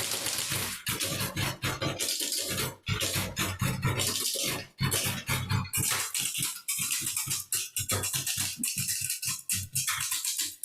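Old manual typewriters played as percussion instruments in an ensemble piece: fast, rhythmic clacking of key strikes from several machines at once.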